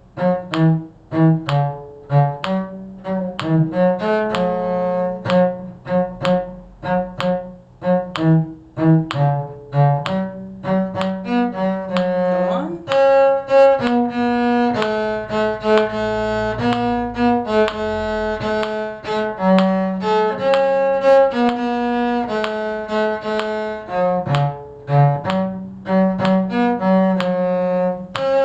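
Cello and other bowed strings playing a slow tune in several parts at once. The notes are short and detached at first, then from about halfway they turn to longer held, bowed notes.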